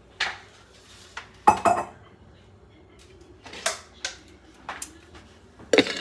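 Kitchen items being handled on a counter: a series of irregular sharp clinks and knocks, the loudest about a second and a half in and another cluster near the end.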